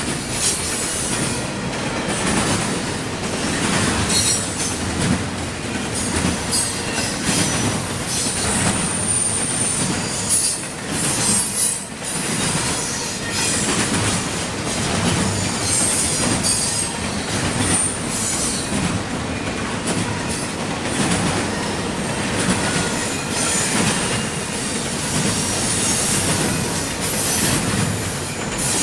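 CSX intermodal freight train rolling past with its steel wheels screeching against the rails, high squeals coming and going over a steady rumble and the clack of wheels over rail joints.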